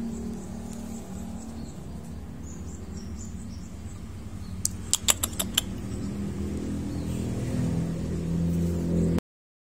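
A steady low mechanical hum, growing a little louder near the end, with a quick run of five sharp clicks about five seconds in. The sound stops abruptly just before the end.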